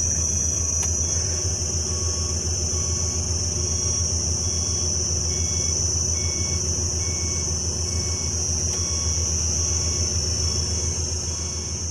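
Diesel engine of heavy earthmoving equipment running steadily with a low, fast-pulsing rumble, under a constant high-pitched insect drone.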